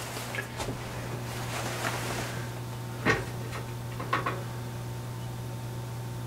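Handling noises on a workbench: light clicks and rustling, then two sharper knocks about three and four seconds in, over a steady low electrical hum.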